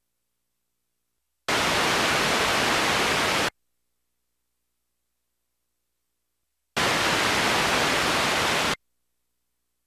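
Two bursts of loud white-noise static, each about two seconds long, switching on and off abruptly with silence between them: playback static from a blank stretch of the video transfer.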